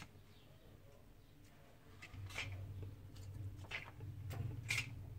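Faint handling sounds of small phone parts during an iPhone 6 repair: a few short sharp clicks and taps in the second half as the charging-port flex cable and parts are handled, over a low steady hum that starts about two seconds in.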